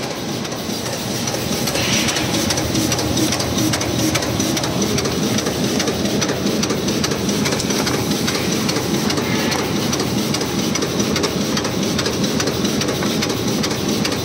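JPM-WDC950/1200 die-cutting machine running: a steady mechanical clatter with rapid, even ticking as it cuts paper cup blanks.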